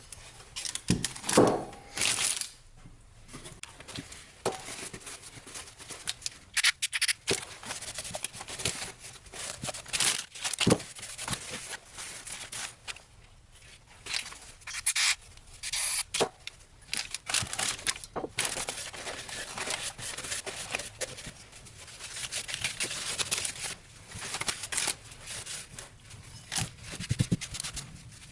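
Irregular hand-work noises: bursts of rubbing and scraping with some crinkling, starting and stopping unevenly throughout.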